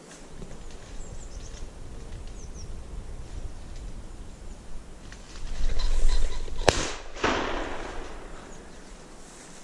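Footsteps and rustling through dry undergrowth, then a single shotgun shot about two-thirds of the way through, followed by a long rolling echo.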